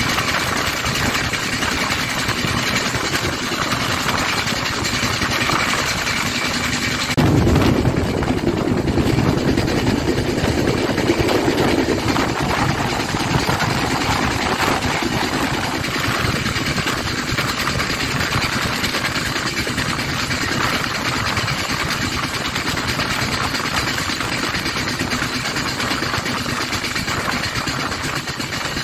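Kamrup Express passenger train running at speed, heard from a moving coach: a steady rumble and rush of wheels on rail. About seven seconds in it grows louder and deeper for several seconds, then settles back to the steady run.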